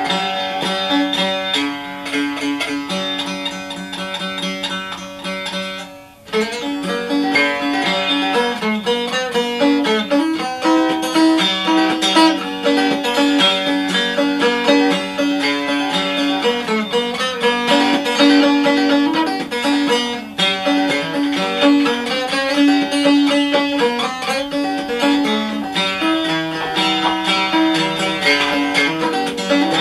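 Maple syrup can banjo played continuously, a run of picked notes with a brief break about six seconds in. The tune leans on the third string to check its tuning, since that string is stretching at a different rate from the others.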